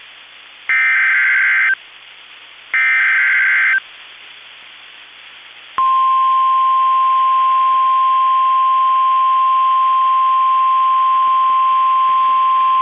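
Emergency Alert System SAME header on NOAA Weather Radio: two short, raspy digital data bursts a second apart, carrying the coded tornado warning. About six seconds in, the weather radio's single steady warning alarm tone starts suddenly and holds, signalling that a warning is about to be read.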